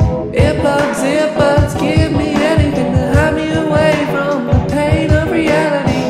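Song playing: a sung vocal over a steady drum beat.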